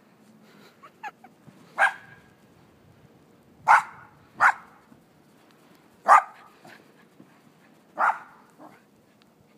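A small dog barking, five sharp single barks spaced one to two seconds apart, with a few fainter yips about a second in.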